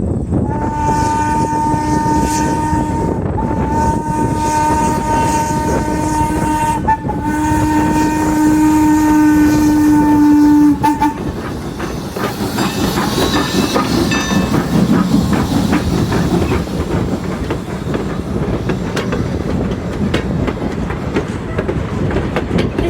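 Approaching train sounding a long whistle with two main pitches, briefly broken twice, for about ten seconds; then the train passing close by, wheels clicking and rattling over the rails.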